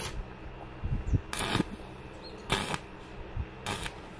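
Stick (arc) welding on stainless-steel rod: the electrode's arc crackling and sizzling, flaring louder about once a second, over a low steady hum.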